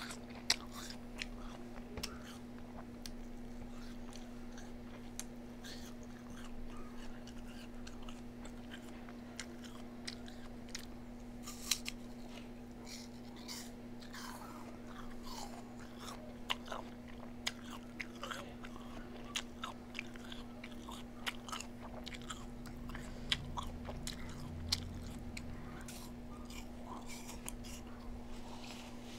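Close-up eating sounds: chewing and biting, with irregular sharp crunchy clicks throughout. A steady low hum runs underneath.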